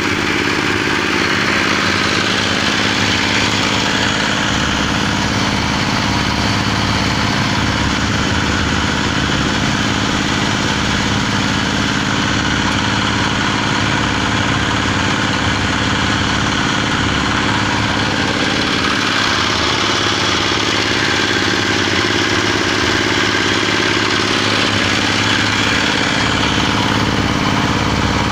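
Small stationary diesel engine running steadily, driving a paddle mixer through a gearbox while the blades churn soil in a stainless tub.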